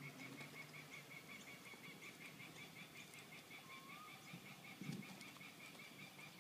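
Faint outdoor animal calls: a steady, rapid, high chirping, several pulses a second, with one short rising whistled note about four seconds in. A soft low thump about five seconds in.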